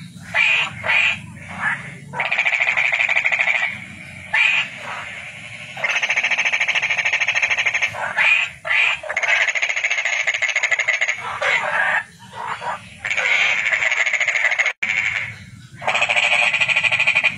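Toads calling: long pulsing trills of a couple of seconds each, alternating with short bursts of calls and brief pauses, with a sudden cut in the sound about three-quarters of the way through.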